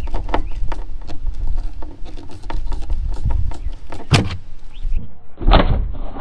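Hand screwdriver turning screws into a boat speaker's trim ring in the fiberglass panel: a run of irregular clicks and scrapes, a louder knock about four seconds in, and a loud, longer burst of noise about five and a half seconds in.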